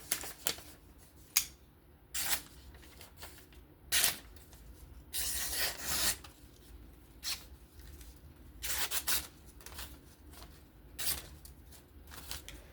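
A knife blade slicing through paper in a series of short, sharp rustling strokes, with two longer cuts of about a second near the middle and again later.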